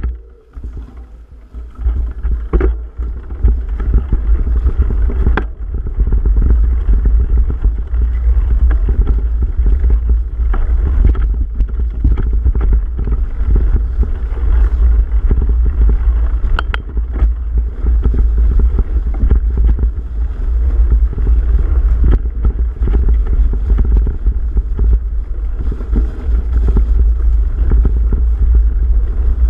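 Wind buffeting the microphone of a camera on a mountain bike ridden along a rough, leaf-covered dirt trail, with the bike rattling and knocking over bumps. The rumble builds over the first few seconds as speed picks up, then runs steadily, with scattered sharp knocks.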